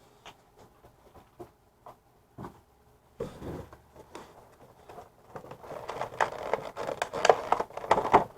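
A cardboard trading-card collection box and its packaging being opened by hand: a few scattered taps and scrapes, then busier scraping and rustling from about three seconds in, loudest near the end.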